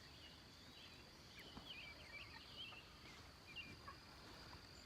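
Faint, scattered short peeps of young meat chickens, about four weeks old, over a steady high insect drone.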